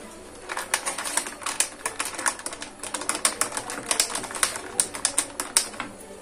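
Steel spoon stirring iced coffee in a glass, clinking against the glass and ice cubes in rapid, irregular taps that stop shortly before the end.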